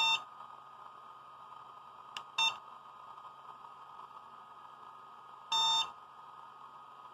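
Hobbymate D6 Dual Lite smart charger beeping as its scroll wheel is pressed to set up a LiPo charge: a short beep at the start, a click followed by a short beep about two and a half seconds in, and a longer beep about five and a half seconds in. A faint steady hum lies underneath.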